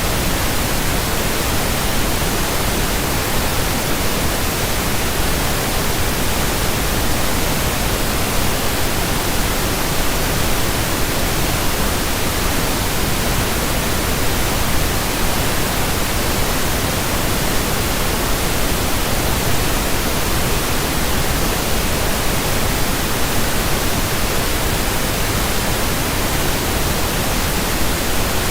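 Steady pink noise: an even, unchanging hiss spread across all pitches, synthesised for sleep and relaxation.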